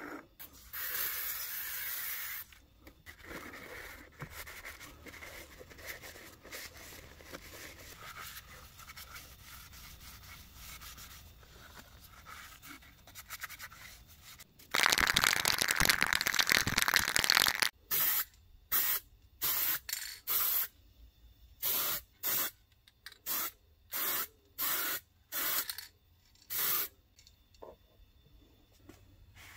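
A cloth rubbing and wiping over a bare metal stove burner grate. Then spray paint hisses onto the grate: one long spray of about three seconds, followed by about ten short bursts, each about half a second long.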